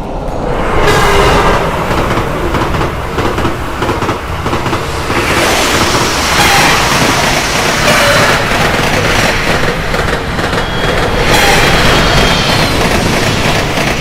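A train passing, a loud rushing rumble that swells about a second in, again in the middle and once more near the end before fading away.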